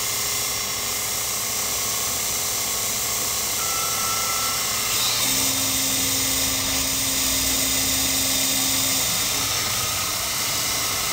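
Miniature Sherline CNC cam grinder running, its small high-speed wheel grinding a camshaft lobe under flowing coolant with a steady hiss. About five seconds in, a steady hum joins for about four seconds as the stepper-driven axes move.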